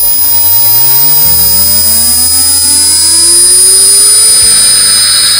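HQD air-cooled CNC router spindle motor, driven by a variable-frequency inverter, spinning up toward 18,000 rpm. Its whine rises steadily in pitch for about four and a half seconds, then holds, over a steady high-pitched whine. On its freshly replaced bearings it runs smooth, like new.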